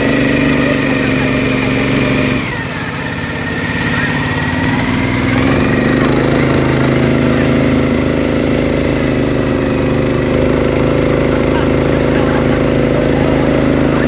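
Small motorboat engine running steadily. It drops back about two and a half seconds in, then picks up again over the next few seconds and holds a steady speed.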